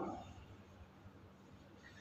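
Quiet room tone with a faint, steady low hum.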